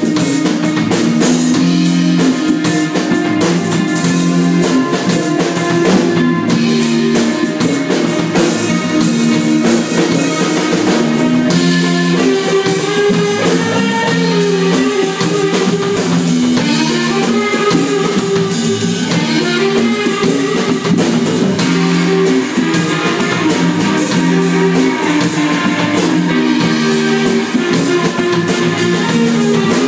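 Live rock band playing: electric guitars over a drum kit, with a repeating riff.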